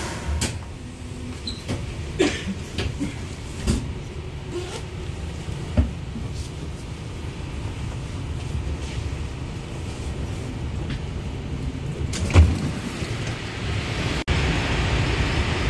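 Low steady rumble of a moving elevator car, with a few scattered knocks and clicks. About fourteen seconds in, it cuts abruptly to a louder, steady hiss.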